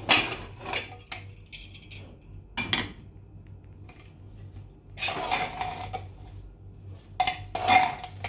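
Aluminium pressure cooker opening with a metallic clank of the lid, then a perforated metal ladle knocking and scraping against the inside of the pot as the cooked rice is stirred, with longer ringing scrapes about five seconds in and near the end.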